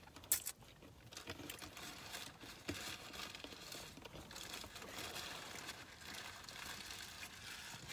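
Crinkling and rustling of a food wrapper, with many small crackles, after a single sharp click about half a second in.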